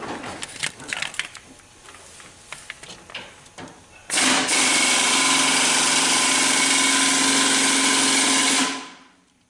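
Light clicks and knocks of metal parts being handled, then a power tool runs steadily for about four and a half seconds before winding down.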